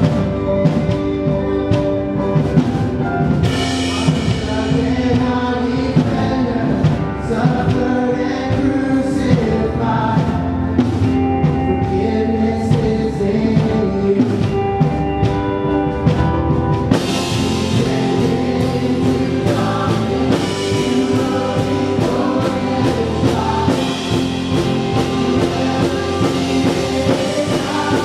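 Live worship band music: singing over guitars, keyboard and a drum kit keeping a steady beat. The sound grows brighter and fuller about seventeen seconds in.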